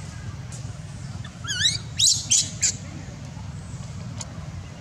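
Baby macaque giving high, wavering squeals. A couple of calls come about a second and a half in, followed by a louder burst of short cries about two seconds in.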